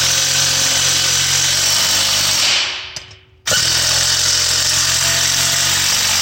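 A power tool running in two long steady bursts, the first winding down about two and a half seconds in and the second starting again about a second later, driving bolts on an air bag bracket.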